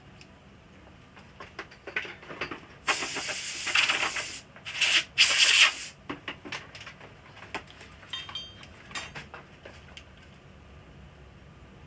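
Two loud bursts of hissing, rubbing noise, the first about a second and a half long and the second about a second, among scattered small clicks and taps as parts of an LCD TV are handled during its repair.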